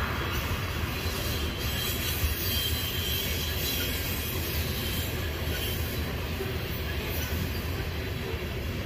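Covered hopper cars of a Union Pacific grain train rolling past, a steady rumble of steel wheels on rail, with a faint high wheel squeal a few seconds in.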